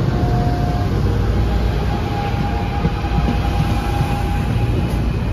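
NJ Transit Arrow III electric multiple-unit cars pulling out and rolling close past, a loud steady rumble of wheels on rail. A thin tone runs above the rumble, stepping up a little in pitch about a second in and fading near the end.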